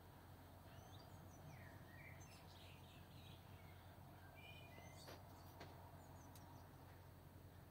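Near silence, with faint, scattered bird chirps over a low steady hum.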